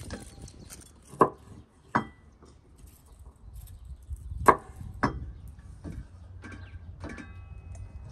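Kitchen knife cutting garlic cloves on a wooden cutting board: a few separate sharp knocks of the blade on the wood, the loudest about halfway through.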